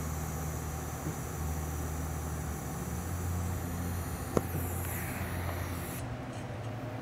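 TIG welding arc tacking a carbon-steel pipe into a socket fitting: a steady low hum with a high hiss over it, and one sharp click a little over four seconds in. The high hiss drops away about a second before the end.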